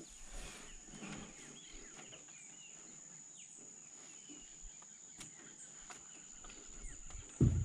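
Faint river-bank wildlife: a steady high-pitched insect drone with scattered short bird chirps. A single low thump comes just before the end.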